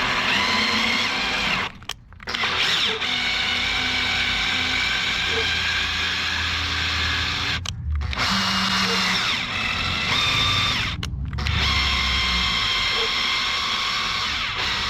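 Electric drill running at low speed, driving a thread tap into a stripped bolt hole in an aluminium cylinder head. It stops briefly about 2 seconds in, near 8 seconds and near 11 seconds, then starts again.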